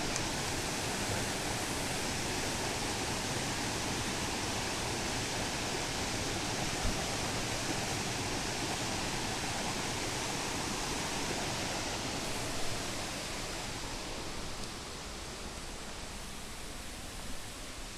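Steady rushing outdoor noise, a wide even hiss like moving water or wind, easing slightly a few seconds before the end.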